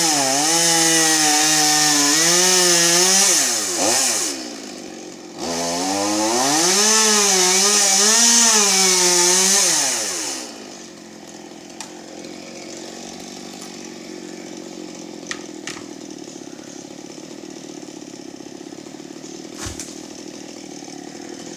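Chainsaw cutting through pine limbs, its engine pitch sagging and climbing under load in two spells of sawing with a short break between. About ten seconds in the sawing stops, leaving a much quieter low steady hum with a few light knocks.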